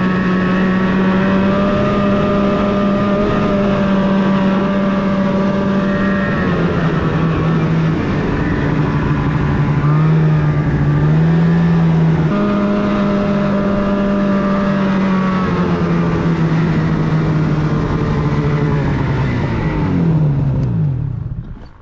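Snowmobile engine running under throttle with a steady, droning note. The pitch dips and recovers a few times as the throttle changes, then falls away near the end as the sled slows.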